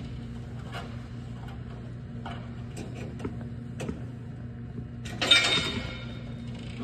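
Steady low electrical hum of the kind heard in a transformer room, with scattered light clicks and knocks from hand work on transformer cable terminations, and a louder scraping rustle about five seconds in as the worker shifts his body against the cables and floor.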